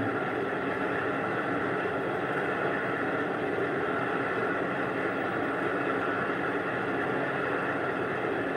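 Small benchtop metal lathe running steadily, its motor and gearing giving an even hum with faint steady tones, while a cut on a round bar is fed by hand.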